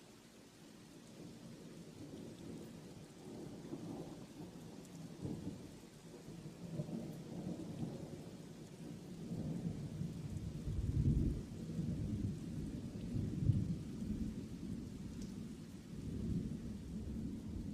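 Thunderstorm: thunder rolling and rumbling in long low swells over steady rain, loudest about eleven and again about thirteen seconds in.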